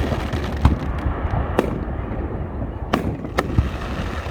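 Aerial fireworks going off: several sharp bangs a second or so apart, over a constant low rumble of other bursts.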